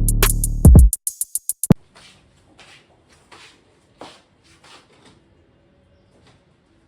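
Electronic music with a drum-machine beat and deep synth bass that stops abruptly about two seconds in. After it, only a few faint rustles and soft ticks remain.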